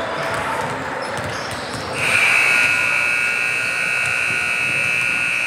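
Basketball scoreboard horn sounding one long steady blast, starting abruptly about two seconds in after a stretch of gym noise.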